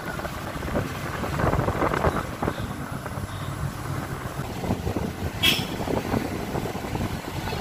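Riding in the open back of a 4x4 pickup truck: steady vehicle rumble and rattling with wind buffeting the microphone, and one short sharp noise about five and a half seconds in.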